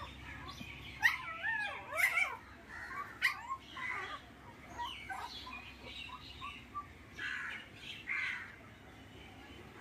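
Puppies whining and yelping in a run of short, high-pitched cries, with a longer wavering whine about a second in.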